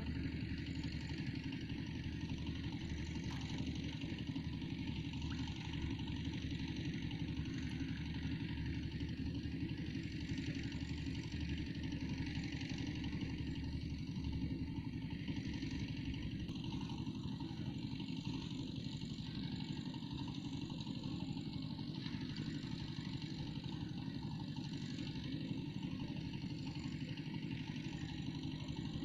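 An engine running steadily with a constant hiss above it, with no change in speed.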